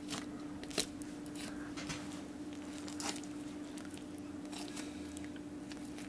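Faint crackling and small wet clicks of a knife and fingers working the thin skin and feathers off a partridge breast, over a steady faint hum.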